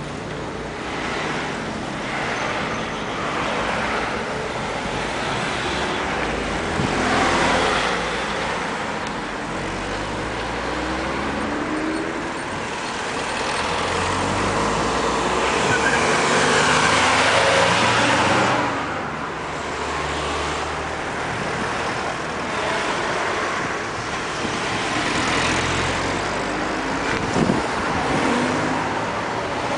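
Cars driving past close by on a street, one after another, their engine and tyre noise swelling and fading. The loudest pass comes a little past the middle, and a brief knock sounds near the end.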